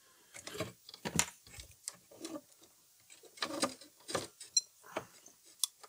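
Faint, irregular clicks and scrapes of hands handling a small circuit board and clipping meter test probes onto a capacitor's leads.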